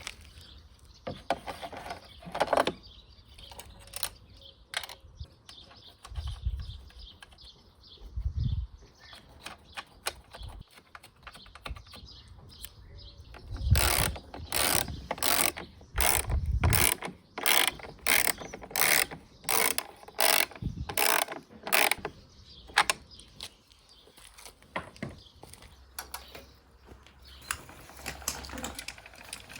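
Ratcheting clicks and metal knocks from hand work on a lawn mower's recoil starter mechanism. A regular run of about two clicks a second comes in the middle, between scattered clicks and a few dull thumps.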